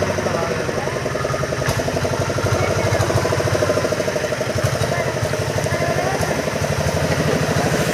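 A single engine running steadily at an even speed, with a fast, regular beat.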